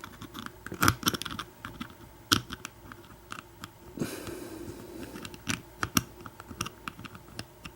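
Small metal clicks and taps of an American Lock 1100 padlock being taken apart by hand, its parts and pins knocking together and on the work surface. There is a short scraping sound about four seconds in.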